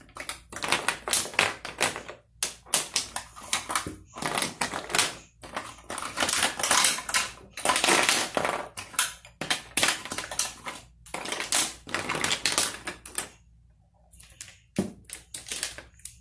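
Lipstick tubes and small plastic cosmetic cases clicking and clattering as they are handled and set down on the vanity top, in quick runs of taps with short pauses between. The clicks thin out to a few near the end.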